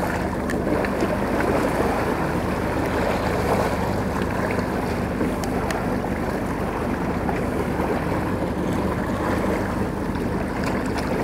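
A boat's engine running steadily under a constant rush and splash of water along the hull.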